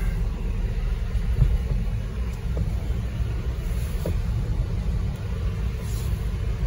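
Jeep Grand Cherokee creeping along at low speed: a steady low engine and tyre rumble heard from inside the cabin.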